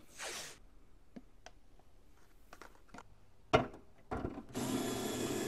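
Cordless electric screwdriver at work: a sharp click a little over three and a half seconds in, then the motor whirring steadily through the last second, after a brief swish and a few light taps earlier on.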